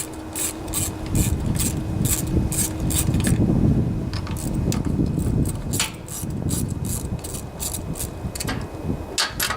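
Socket ratchet clicking in quick runs on a 5/16 long socket while the two carburetor mounting bolts are backed out, with rubbing and handling noise from the tool on the engine.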